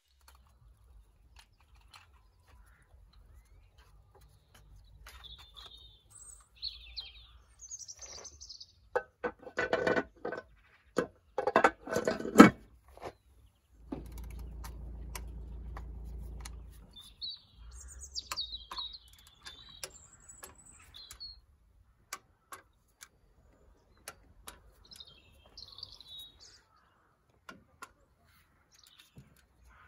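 Small birds chirping in short high calls, heard several times. About ten seconds in comes a run of loud knocks and clatter, then a steady low hum for a few seconds, with scattered light clicks of hand work on an engine.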